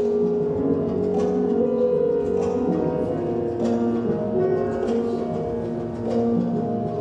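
Calm instrumental music playing: held, overlapping notes with a new note struck about once a second.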